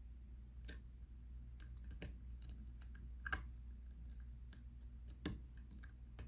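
Faint, irregular small metallic clicks and ticks of a hook pick working the pin stack of a pin-tumbler lock under tension. It is a challenge lock with spool and serrated security pins, picked pin by pin.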